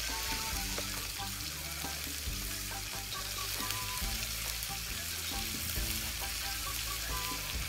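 Food sizzling steadily in a hot wok over a gas flame, stirred and pushed around with a wooden spatula, with soft background music underneath.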